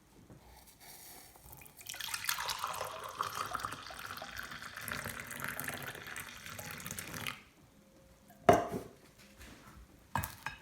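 Kitchen tap turned on and run for about five seconds, then shut off, followed by two short knocks.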